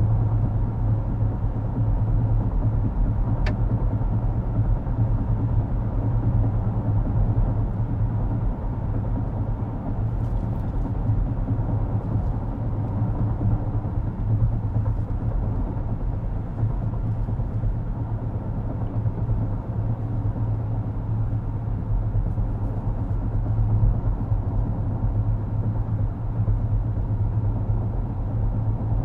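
Road and tyre noise inside the cabin of a 2023 Acura MDX on the move: a steady low rumble and drone.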